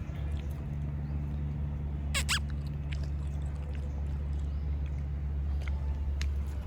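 A dog gives one short, high whine about two seconds in, over a steady low rumble.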